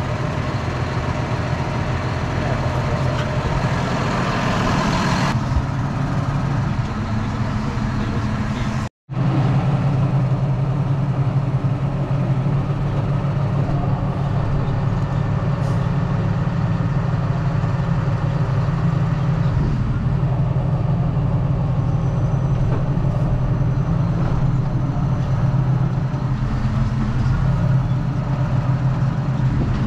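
John Deere tractor's diesel engine running steadily, with the sound cutting out for a split second about nine seconds in.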